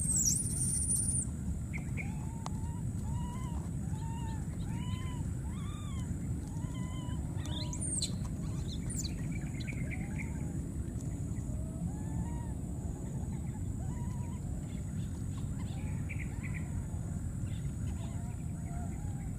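A series of short, arched, squeaky animal calls, about two a second for several seconds and then more scattered, with a couple of brief sharp high squeaks in the middle, over a steady low rumble.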